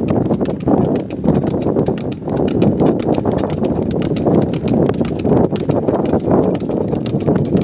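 Hooves of a buffalo bull clip-clopping quickly on a paved road as it trots pulling a cart, over a steady rumble.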